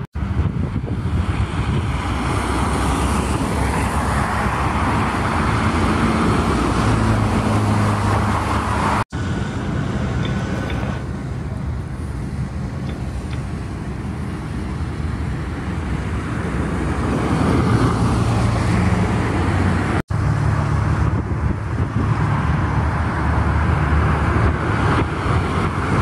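Road traffic on a wide multi-lane avenue: cars passing one after another, the noise swelling and fading as each goes by. The sound cuts out for an instant twice.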